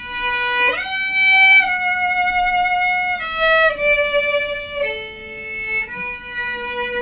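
Segment-break music: a lone instrument playing a slow melody of about six long held notes, the first sliding up to a higher note about a second in.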